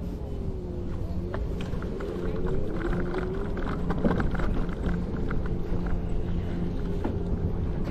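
Scooter riding along a path: a low hum whose pitch slowly wavers up and down, over steady rolling rumble and many small knocks and clicks from the wheels.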